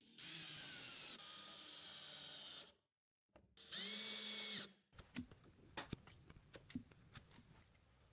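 Power drill driving screws in two runs, a steady motor whine for nearly three seconds and then a shorter run about three and a half seconds in. Light clicks and knocks of handling follow.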